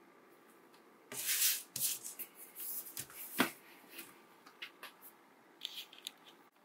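Hands handling a white plastic essential oil diffuser: rubbing and scraping on the plastic base with scattered clicks and taps, a sharp knock about three and a half seconds in, then a few light ticks as the cover is set on.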